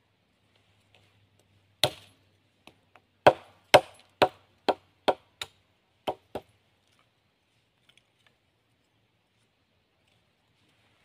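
Machete blade chopping a stick against a log: a quick run of about nine sharp chops, roughly two a second, starting about two seconds in and ending about six and a half seconds in.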